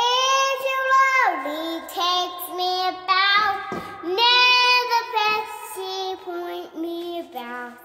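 Young girl singing a made-up song about washing hands with soap, opening on a long held note that drops away about a second in, then shorter sung phrases.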